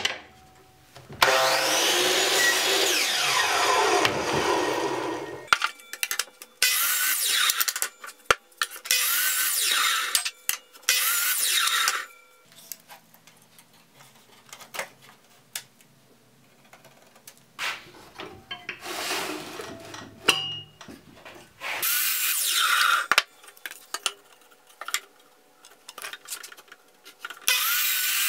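Electric miter saw cutting thin pallet-wood strips, several cuts one after another, each a loud burst of a few seconds. After the first cut the blade's whine falls as it spins down. Between cuts there are quieter clicks and knocks of wood being handled.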